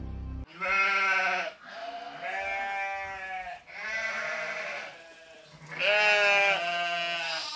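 An animal's drawn-out, wavering cries: several in a row, each about a second long, with short gaps between them.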